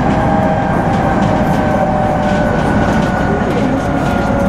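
Electric train running on the line, heard from inside at the front of the train: a steady rumble of wheels on rail with a traction-motor whine in two tones that slowly fall in pitch.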